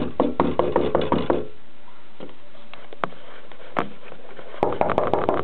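Rapid knocks: a quick run of about eight in the first second and a half, two single knocks a little past the middle, and another quick run near the end.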